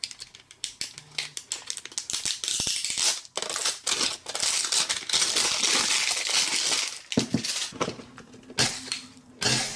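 Plastic packaging being handled: crinkling, clicking and rattling as hands peel and pry open a plastic cupcake-shaped toy capsule, with a longer stretch of dense crinkling hiss in the middle.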